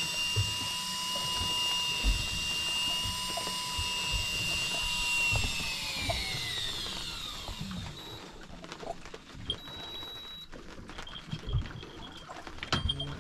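Small electric motor, an electric fishing reel, whining steadily as it winds in line, then slowing in pitch and stopping about seven seconds in. A few faint clicks and taps follow.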